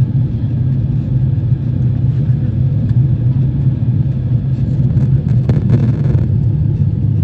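Steady low rumble inside the cabin of an Airbus A350-900 from its Rolls-Royce Trent XWB engines and airflow, with a brief hiss about five seconds in.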